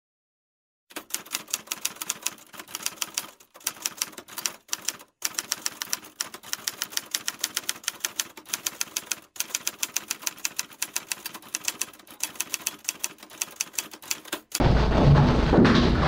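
Typewriter keys clacking in quick strokes, about five a second, with a few brief pauses, laid over a text card as a sound effect. Near the end it cuts off suddenly into louder room noise.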